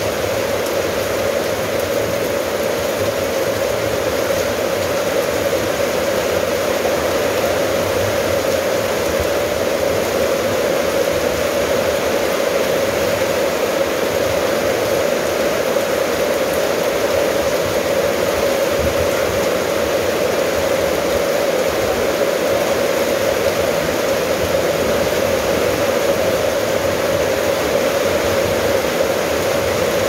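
Steady rain falling on corrugated metal roofing and a wet yard, an even, unbroken hiss.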